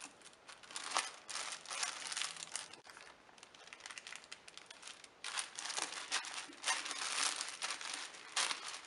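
White paper sandwich bags rustling as they are handled, laid onto a glued stack and smoothed flat by hand, in two bouts with a quieter stretch about halfway.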